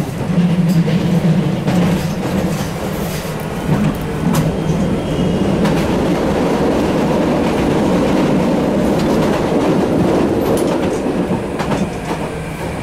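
Hiroshima tram running along the track, heard from inside the driver's cab: a steady rumble of wheels on rail with irregular clicks as the wheels pass over rail joints.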